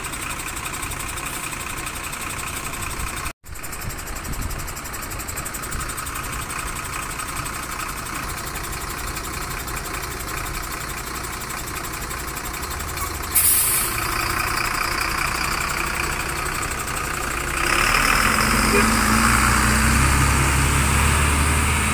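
Mercedes-Benz coach's diesel engine idling steadily. A short burst of hiss comes about two-thirds of the way through, and near the end the engine grows louder and deeper as the coach pulls away.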